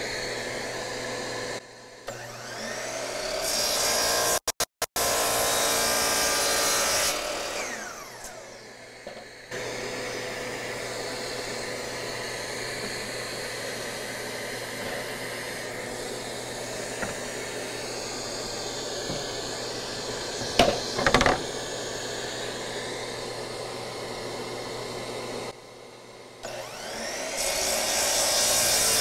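A shop vacuum runs steadily as dust collection on a Bosch GCM12SD 12-inch glide miter saw. The saw's motor spins up and the blade cuts oak twice: once about three seconds in, lasting about four seconds, and again near the end. A couple of sharp knocks come about two-thirds of the way through.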